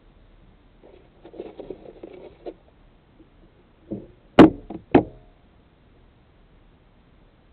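Rustling and handling noise from someone moving inside the parked car, then three sharp knocks in quick succession, the first and last loudest.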